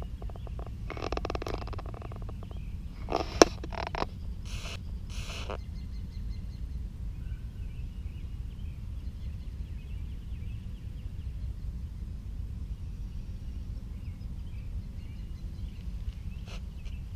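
Outdoor ambience with a steady low rumble of wind on the microphone. Rustling in the first few seconds, with a single sharp knock about three and a half seconds in, then faint birds chirping.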